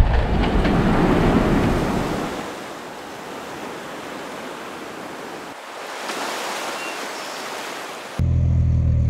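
Wind on the microphone and surf washing, a steady rushing noise that is loudest for the first couple of seconds and then drops away. Near the end it cuts suddenly to a steady low hum.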